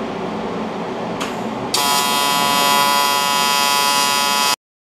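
TIG welding arc on aluminum plate: the arc strikes about two seconds in and runs with a steady, harsh buzz, the AC arc used for aluminum. It cuts off suddenly near the end.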